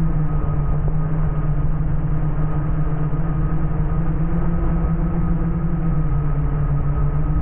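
Steady low engine hum with fainter higher tones above it, unchanging throughout.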